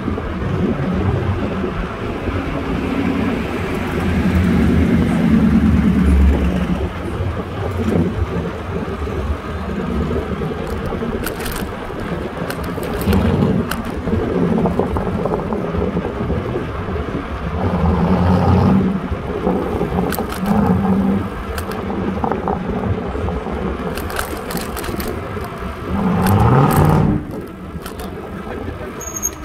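City street traffic and road noise heard while moving, a steady rush that swells and fades, with a louder surge rising in pitch near the end.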